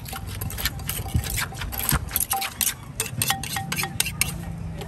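Wooden pestle pounding green papaya salad in a clay mortar, a quick run of knocks several times a second, with a metal spoon clinking and scraping against the mortar in the second half as the salad is mixed.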